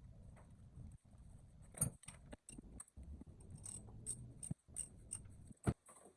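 Irregular light clicks and knocks of hand work on a car engine, with parts and tools being handled as a new ignition coil is fitted, over a faint low hum.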